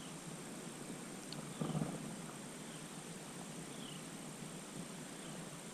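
Quiet outdoor ambience with faint, short, high chirps repeating about once a second, and a brief low rustle just under two seconds in.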